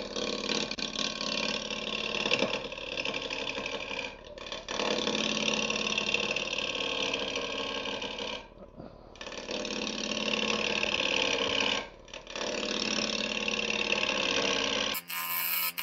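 A gouge cutting into a spinning ash blank between centres on a wood lathe: a steady rough-turning cutting noise over the lathe's hum, broken by three short pauses between passes. In the last second it changes to a rapid, regular ticking.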